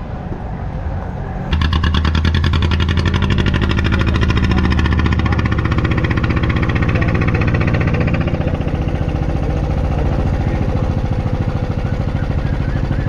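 Small engine running close by, abruptly louder about a second and a half in, then holding a fast, even firing rhythm that eases slightly later on.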